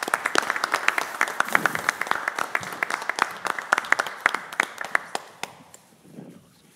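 A small group applauding with a dense patter of handclaps that thins out and stops about five and a half seconds in.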